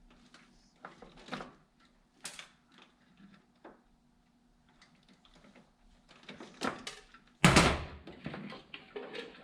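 Hand-handling noises of wiring and a plastic connector being worked: scattered light clicks and rustles, with one loud thump about three-quarters of the way in.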